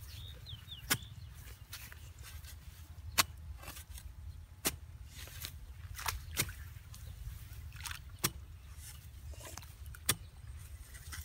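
A long-handled metal digging blade chopping into wet soil, with about eight irregular sharp strikes over a steady low rumble.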